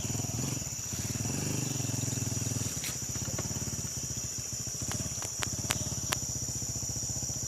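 Motorcycle engine running, revving up from about one to nearly three seconds in, then settling to a steady lower run. A constant high insect drone sits over it, and a few sharp clicks come between about three and six seconds in.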